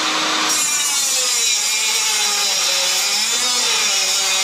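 Grinder with a cut-off wheel slicing through the sheet-steel windage tray of an LS swap oil pan, trimming it along a marked line. The wheel runs steadily, its whine wavering in pitch as it bites into the metal.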